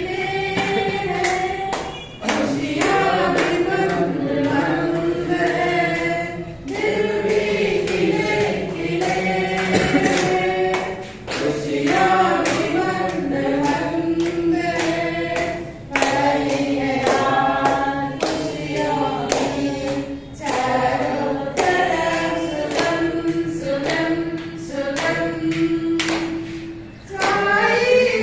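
A small group of people singing a song together in chorus, in phrases of a couple of seconds each, with handclaps.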